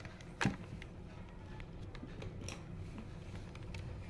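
Handling noise from working on an opened LED TV: one sharp knock about half a second in, then a few light clicks over a low background.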